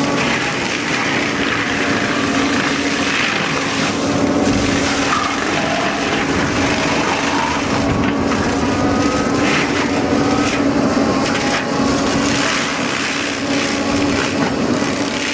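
A heavy wood-working machine's engine running steadily under load while wood is crushed, with a continuous cracking, grinding noise.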